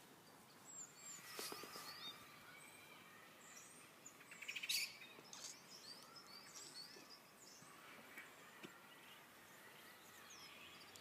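Faint songbirds chirping and calling, with a brief louder burst of calls a little under halfway through.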